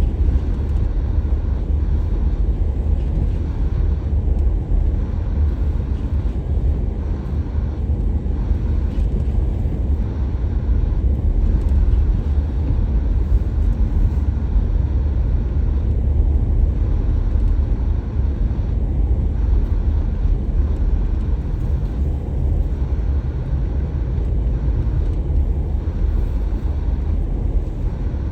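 Car driving: a steady low rumble of engine and road noise with no change throughout.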